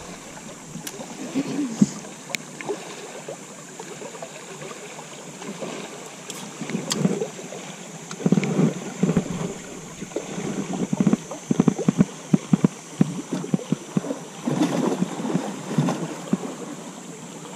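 Water lapping and slapping against the boat's hull in irregular splashes, heavier from about eight seconds in.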